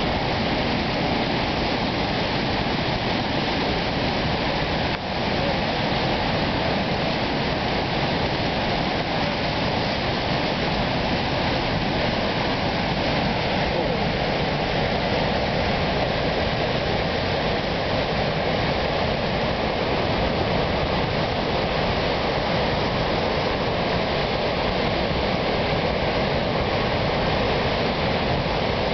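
Steady, unbroken rush of the Mohawk River running high in an ice-breakup flood.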